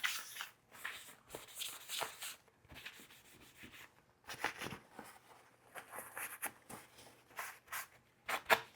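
Paper towel rubbing and wiping over a MacBook's cooling fan in short, irregular scratchy strokes.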